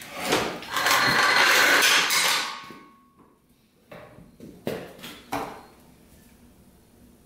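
A metal stand scrapes loudly across a concrete floor for about two seconds, then three separate metal clunks follow as the dirt bike is set down onto its freshly welded side kickstand.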